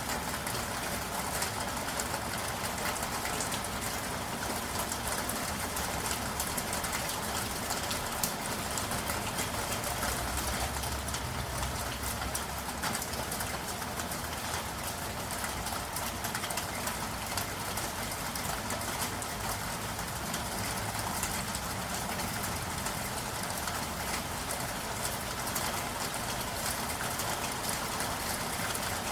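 Steady rain falling in a city, an even hiss of drops on hard surfaces, with the rumble of traffic underneath. The low rumble swells about ten seconds in and fades a few seconds later.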